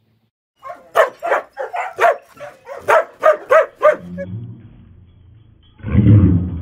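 A dog barking hard and fast, about ten barks in three seconds, then stopping. Near the end comes a short, loud low rumble.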